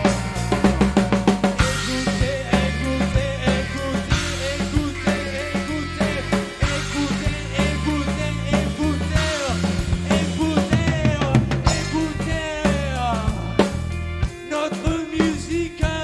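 A rock band playing an instrumental passage: a busy drum kit with snare and bass drum hits over a moving bass line, and a lead line that bends in pitch above it.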